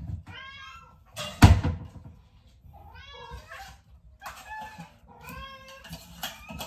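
Hungry house cats meowing for food, about five drawn-out meows one after another. A single loud thump about a second and a half in.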